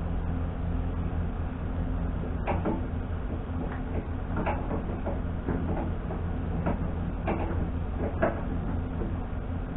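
An engine running steadily at a low, even hum, with about eight irregular knocks and clunks in the middle of the stretch.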